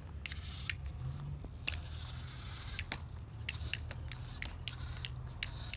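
Homemade DC-motor model tractor pulling a small mud-loaded trolley over dry dirt: irregular small clicks and crackles, a few a second, over a low steady hum.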